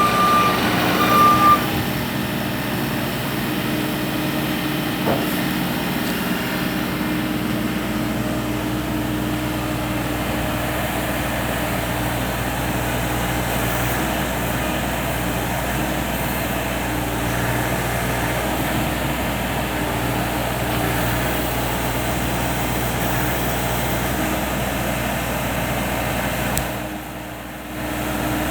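2023 Bobcat E35 mini excavator's Tier 4 diesel engine running steadily at a constant speed, with two short beeps from the machine near the start. The engine sound briefly drops away for about a second near the end, then returns.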